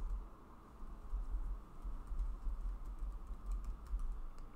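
Typing on a computer keyboard: a run of irregular keystroke clicks as a long password is keyed in.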